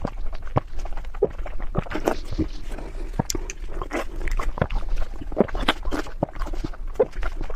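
Cat eating close to the microphone, chewing and smacking in a quick, irregular run of clicks.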